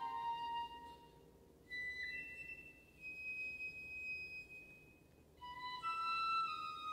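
Background music: a high melody of long held notes in short phrases over a soft, steady low accompaniment.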